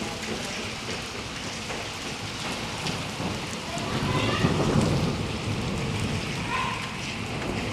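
Heavy rain pouring steadily, with a low rumble of thunder swelling about four seconds in.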